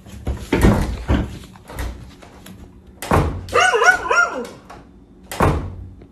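A dog barking in a quick run of high, wavering barks about three seconds in. Before it come a few thumps of footsteps on wooden stairs, and there is one more thump near the end.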